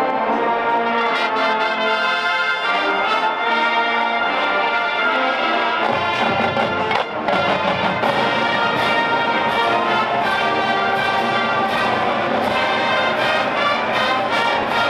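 College marching band playing a brass-led piece, with sustained chords over regular drum strokes. The low brass and drums come in fuller about six seconds in.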